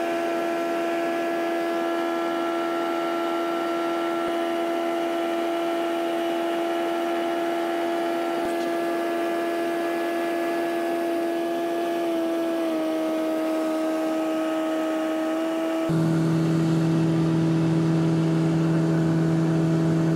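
Tecnam P2010 light aircraft's piston engine and propeller droning steadily in flight, heard from inside the cabin. The pitch drops slightly about twelve seconds in, and a few seconds later a lower hum joins and it gets a little louder.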